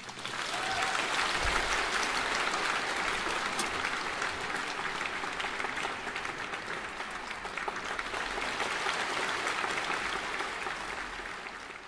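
Concert-hall audience applauding: dense, steady clapping that builds in the first second and eases slightly near the end.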